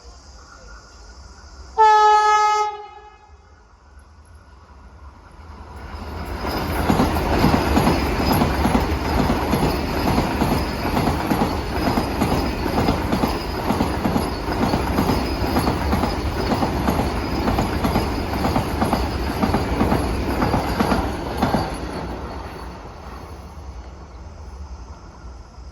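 Vande Bharat Express electric train sounds one short horn blast, then passes at speed with a loud rush of rapid wheel clatter for about fifteen seconds that fades away near the end.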